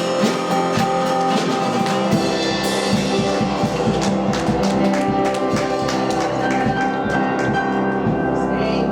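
Live worship band music with a drum kit keeping the beat under held chords; the drum strikes thin out near the end while a chord rings on.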